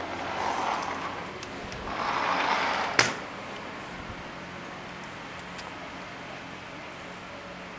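A sliding door rolling along its track in two pushes, then a single sharp knock about three seconds in; after that only a faint steady hiss.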